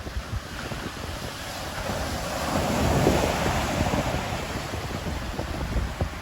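Ocean waves breaking on the shore. One wave's wash swells to a peak about three seconds in and then fades, over a low rumble of wind buffeting the microphone.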